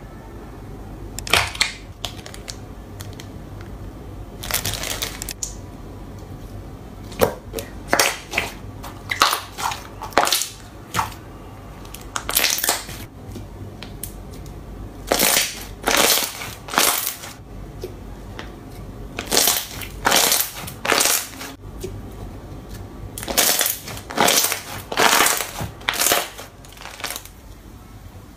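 Thick blue slime worked by hand in a plastic tub, giving a string of short, irregular squishing and crackling sounds, some in quick runs, with quieter gaps between.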